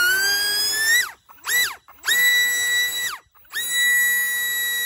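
Flite Test 2207-2400 brushless motor on a three-blade prop, powered by a 4S battery, whining as it is throttled up with a rising pitch, cut off, blipped, then run up again to a steady high whine. It drops out for a moment before settling at a steady pitch, ready for the hand launch.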